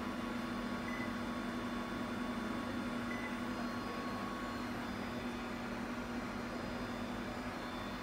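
Panasonic CS-PV9TKH mini-split indoor unit giving two short high beeps about two seconds apart, acknowledging the remote's temperature-down presses, over a steady machine hum.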